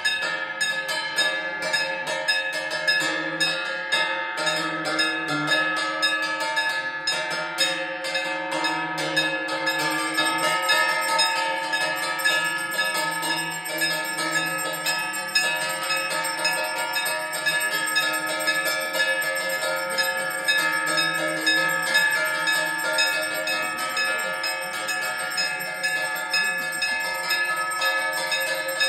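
Temple bells rung without a break during evening arati, with repeated strikes that keep many overlapping metallic tones sustained.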